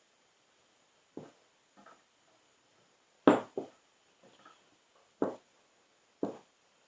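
A series of separate sharp clicks and knocks, roughly one a second, the loudest about three seconds in: hand-tool work on the frost-free yard hydrant while its packing nut is being tightened down on the graphite stem seal.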